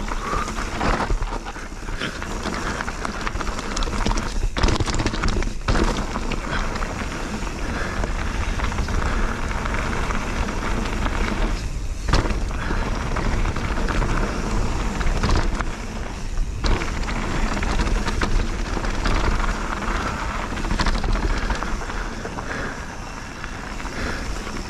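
Mountain bike (Bird Aeris 145) riding down a rough bike-park trail: tyres rolling over stone and gravel, with scattered knocks and rattles from the bike, and wind buffeting the GoPro microphone as a steady low rumble.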